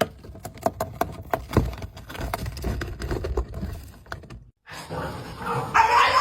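A run of quick clicks and knocks, then after a short break a dog's high-pitched vocalizing begins near the end and is the loudest sound.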